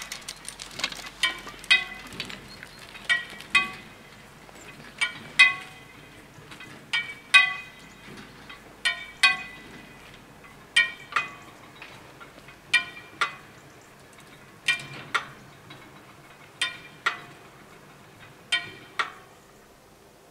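Level crossing warning bells striking with a metallic ring, two strokes about half a second apart, repeated about every two seconds. The bells ring while the crossing clears and the barriers go up, and they stop shortly before the end.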